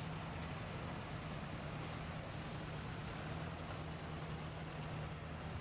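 1954 Ford NAA tractor's four-cylinder gasoline engine running steadily at low speed, an even, unchanging hum.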